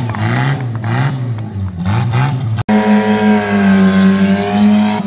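Renault Twingo's small four-cylinder petrol engine revved hard in quick rises and falls. After a brief break in the sound about halfway through, it is held at high revs and eases off near the end.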